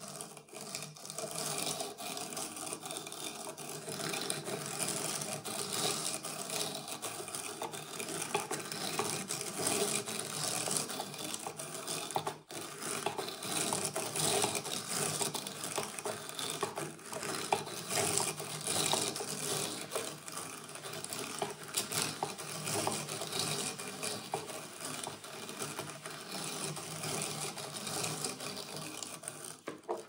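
Hand-cranked drum carder turning steadily, its wire-toothed carding drums brushing and combing cotton fibre with a continuous scratchy rustle and fine ticking.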